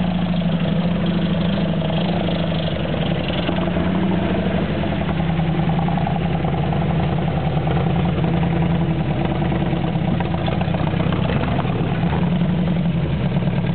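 Jeep's engine running at low, steady revs as it crawls over rocks in four-wheel-drive low range.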